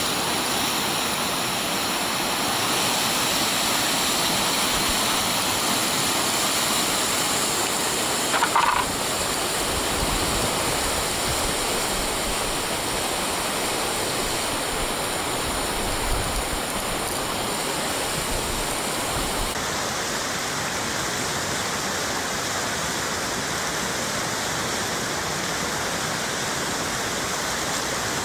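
Whitewater river rapids rushing steadily as a dense, even hiss of water. A brief, louder sound stands out about eight seconds in, and the hiss shifts a little about twenty seconds in.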